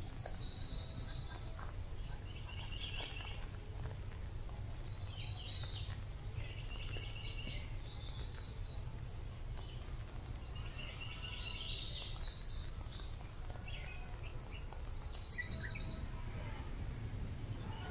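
Small birds chirping in short trilled bursts, about one every couple of seconds, over a steady low rumble.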